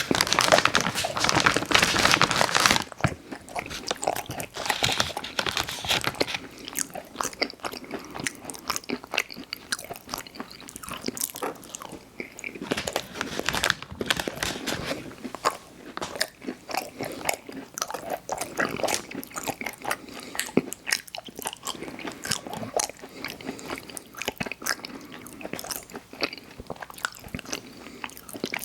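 Close-miked mouth sounds of eating Chips Ahoy! chewy hot cocoa cookies: loud biting for the first few seconds, then steady chewing with many small crunching clicks.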